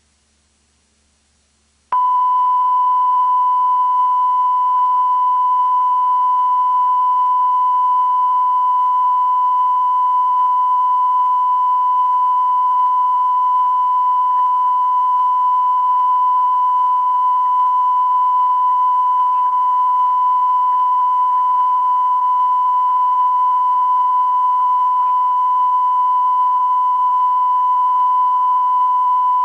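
A steady, high-pitched test tone: one unbroken pure beep that switches on abruptly about two seconds in, after near silence, and holds at an even level. It is typical of the reference tone recorded at the end of a VHS tape over a blank white screen.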